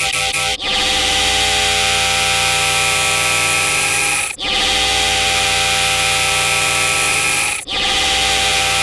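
Tens of thousands of copies of a cartoon voice shouting "sour cream", stacked on top of each other so that they merge into a loud, dense buzzing drone with no words left in it. The mass of voices breaks off briefly and starts again about every three to four seconds.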